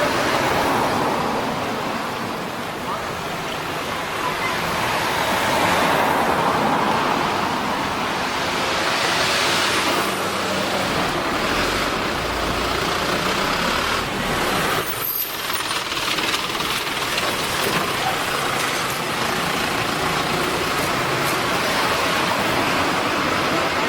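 Road traffic: cars and trucks going by one after another, the noise swelling as each passes.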